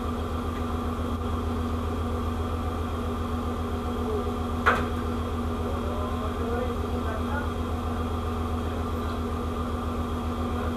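Ship's machinery running with a steady, deep hum that holds several fixed pitches. A single sharp click sounds a little under halfway through.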